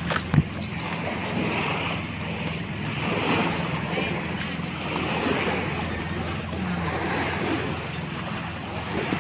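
Water washing around a moored outrigger boat with wind on the microphone, over a low steady boat-engine hum. A short knock comes just after the start.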